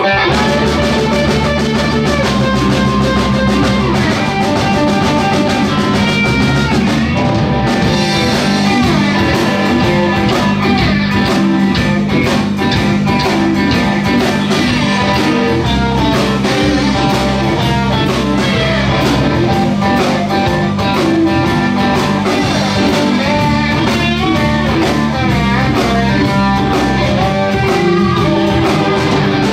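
Live blues band playing a boogie: two electric guitars, electric bass and a drum kit.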